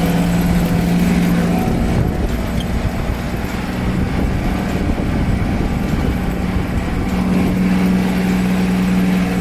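Vehicle engine running steadily, its hum shifting slightly in pitch about a second and a half in and settling again near the end.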